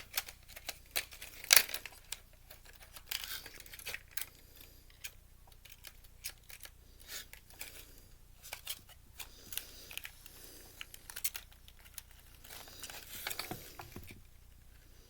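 Irregular clicks, snaps and short scrapes of plastic and metal parts being handled and pried apart while a Blu-ray player is disassembled by hand. The sharpest snap comes about a second and a half in.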